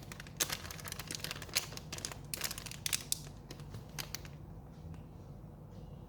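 Packaging being crinkled and torn open by hand: a dense crackling rustle for about four seconds, then quieter handling.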